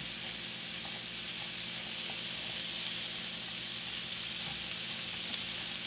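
Sliced mushrooms and diced onion sizzling steadily in olive oil in a hot frying pan, an even hiss with a few faint pops.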